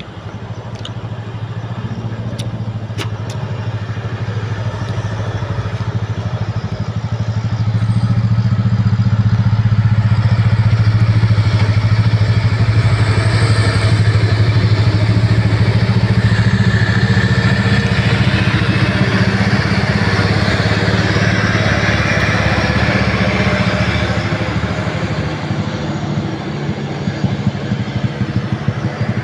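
Diesel engines of two loaded trucks running as they pass on a bend, growing louder over the first several seconds, staying loud through the middle and easing off near the end.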